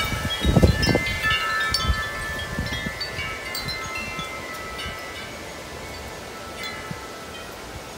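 Large tubular wind chimes ringing in strong gusty storm wind, clanging densely at first, then thinning to a lingering ring as the gust eases. Wind buffets the microphone in the first second.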